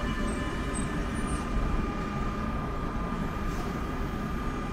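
Train running past: a steady low rumble with a held whine of several high pitches over it.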